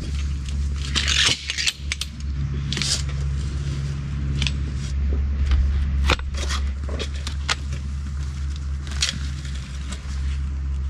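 Excavator's diesel engine running steadily, with intermittent metallic clanks and scrapes.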